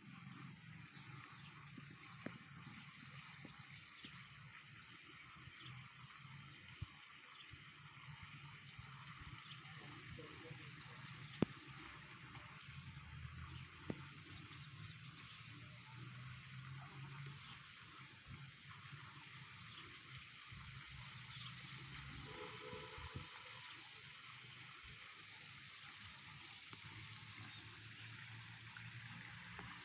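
Frogs and insects calling together: a steady, rapidly pulsing high trill with bouts of low croaking underneath.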